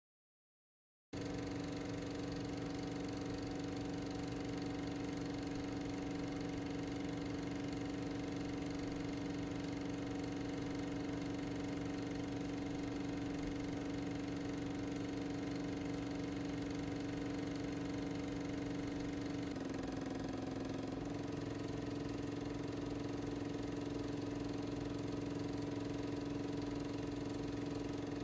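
A motor running steadily with an even hum, starting abruptly about a second in; the hum dips in pitch for a second or so about two-thirds of the way through.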